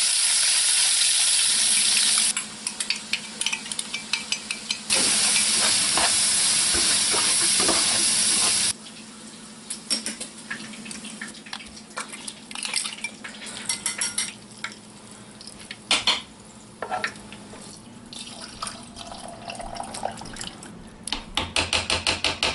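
Ground beef sizzling as it browns in a frying pan, with a utensil poking and scraping at it. About nine seconds in the sizzle cuts off suddenly, giving way to spoon clinks and scrapes against a slow-cooker crock as ingredients are added and stirred, with a run of quick stirring clicks near the end.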